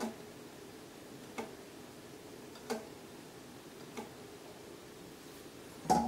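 Five sharp mechanical clicks spaced about a second and a half apart as a hand works the left tape roller assembly of an Otari MX-55 tape deck. The last click, near the end, is the loudest and rings briefly.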